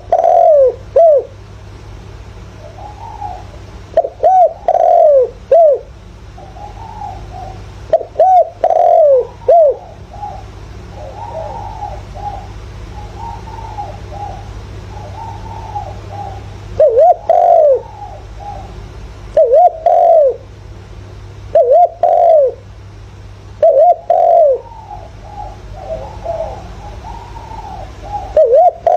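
Spotted dove cooing in short repeated phrases of two or three falling coos, about eight phrases, with fainter dove calls between them. It is a decoy dove's call of the kind used to stir wild doves into answering. A steady low hum runs underneath.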